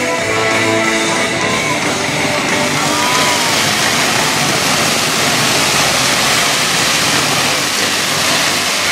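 Music from a fireworks show's sound system, overtaken about two and a half seconds in by a dense, continuous crackle of fireworks that covers it.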